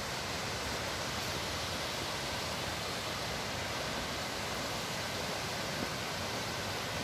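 Fast-flowing small river rushing over shallow rapids: a steady, unbroken hiss of water.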